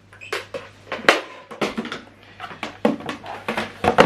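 A quick, irregular run of clicks, knocks and rustles from power plugs and cables being handled and pushed into a wall socket.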